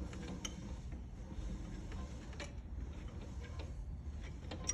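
Okamoto 612 surface grinder's table being moved by hand on its manual travel: irregular light ticks and clicks from the handwheel and slides over a faint low hum.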